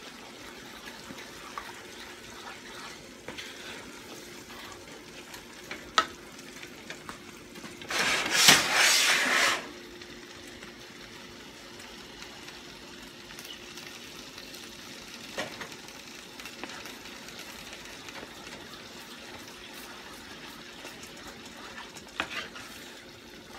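Wooden spoon stirring thick white gravy in a nonstick skillet, with light clicks of the spoon on the pan and a faint steady hum. About eight seconds in, a loud sizzling hiss lasts nearly two seconds as water hits the hot gravy pan.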